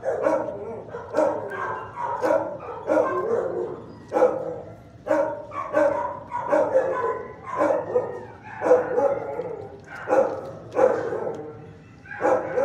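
Dogs barking repeatedly in a shelter kennel block, about one bark a second.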